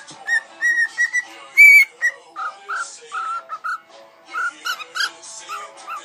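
Cockatiel whistling: a run of clear whistled notes, the loudest about a second and a half in, then quicker, lower chirped notes, over music.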